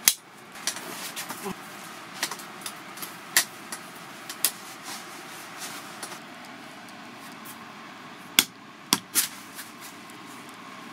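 Helinox Cot Large Convertible being assembled: aluminium poles and plastic leg fittings clicking and knocking into place on the nylon bed, at irregular intervals. The sharpest snaps come right at the start and in a quick cluster about eight to nine seconds in.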